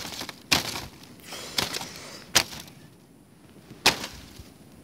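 Boots crunching and stamping in deep snow while struggling to pull free: about five sharp crunches, irregularly spaced.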